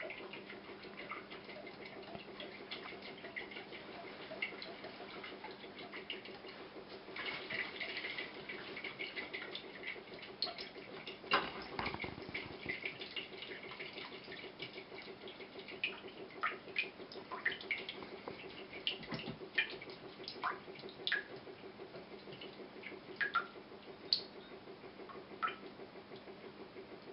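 Coconut water draining from a pierced eye of a coconut into a glass measuring jug: faint irregular trickling and small drips and splashes, over a low steady hum.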